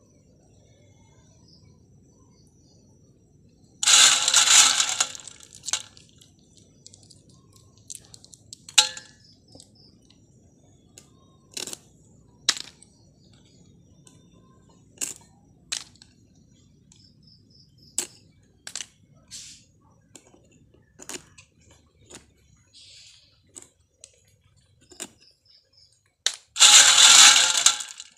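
Freshwater snail shells being cut with a small knife against a leaf: sharp, irregular cracks and clicks, one at a time. Two louder bursts of noise, each about a second and a half long, come about four seconds in and near the end.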